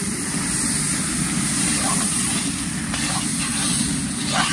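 Turmeric and chilli powder frying in hot oil in a large iron karahi over a wood fire: a steady sizzle, with the long ladle scraping the pan a few times as it is stirred.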